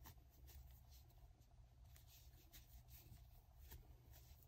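Faint, irregular scratchy rustles of a metal crochet hook pulling braided cotton cord through the stitches, over a low steady room hum.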